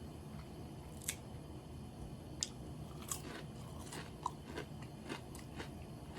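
Close-miked crunching and chewing of crispy fried karaage chicken, a string of sharp crackly crunches a second or so apart over a low steady hum.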